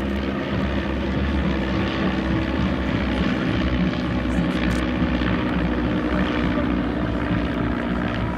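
Several light piston-engined propeller aircraft flying overhead in formation: a steady drone of engines and propellers.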